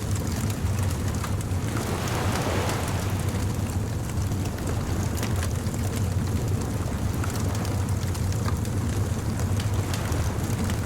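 Beach bonfire crackling with many sharp pops over a steady low rumble of surf, with a wave washing in about two seconds in.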